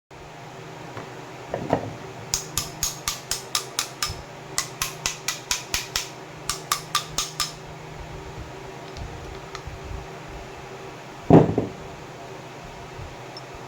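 Rapid sharp taps of a hand tool on the old faucet's metal parts, in three quick runs of about five taps a second, then a single heavier knock near the end.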